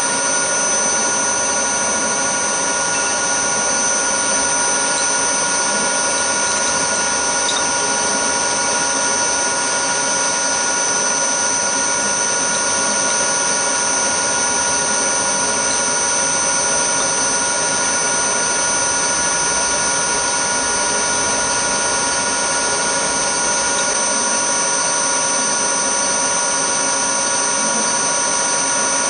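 Milling machine spindle running at a constant speed: a steady whine made of several held tones, with no change in pitch or level.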